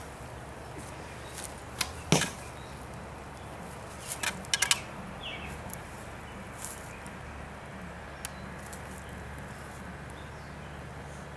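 Homemade PVC-pipe recurve bow with a paracord string being shot: one sharp snap of the string on release about two seconds in, the loudest sound, then a quick cluster of sharp clicks and knocks around four and a half seconds in.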